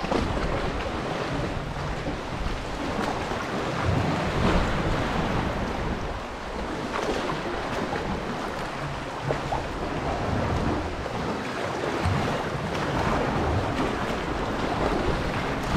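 Sea water sloshing and lapping against the rock walls and the kayak hull as a sea kayak is paddled through a narrow sea cave, with paddle blades splashing in and out of the water. Wind buffets the microphone.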